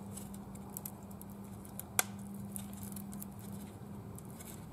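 Small clicks and scrapes of fingers working a plastic nut plate loose from a rusty steel headlight mounting frame, with one sharp click about two seconds in. A steady low hum sits underneath.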